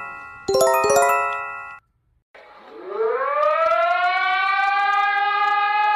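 An attention chime of several struck notes, sounded again about half a second in and dying away, followed after a brief pause by a warning siren winding up from a low pitch and settling into a steady wail.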